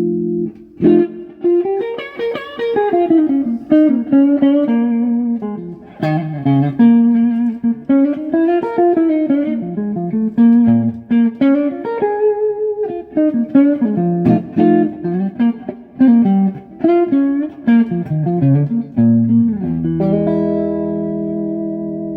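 Electric guitar played through a 1959 Magnatone 260A valve amp: a held chord, then a run of single-note lead lines with some sliding notes, ending on a chord left ringing and slowly fading.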